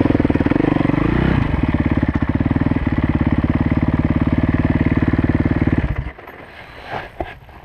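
Kawasaki KX450F's single-cylinder four-stroke engine winding down off the throttle, then idling with a steady beat for about four seconds before it stops abruptly about six seconds in, leaving a few faint knocks.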